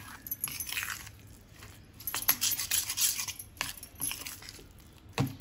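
Metal spoon stirring a thick, moist mix of ground dal and grated raw mango in a stainless steel bowl: scraping strokes in two spells, with several sharp clinks of the spoon against the bowl.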